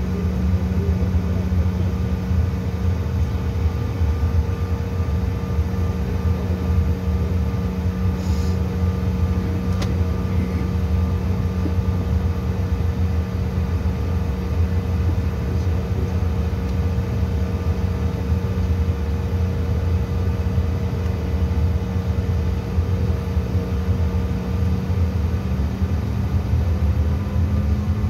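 Cabin noise inside a CRJ900 airliner: its rear-mounted General Electric CF34 turbofan engines running steadily at low power, a low rumble with a steady whine on top. Near the end the whine begins to rise slightly in pitch.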